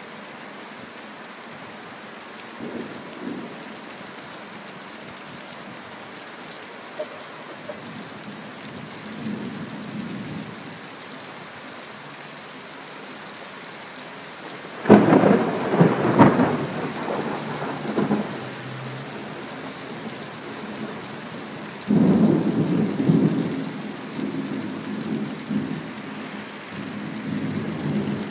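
Thunderstorm: steady rain falling throughout, with thunder. A few faint rumbles in the first ten seconds, then two loud thunderclaps that start suddenly about halfway through and again about three-quarters through, each rolling on for several seconds.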